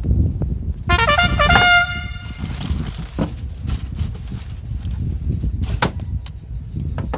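A short trumpet-like sound effect of four notes stepping downward about a second in, the last note held a little longer, over a steady low rumble with scattered clicks.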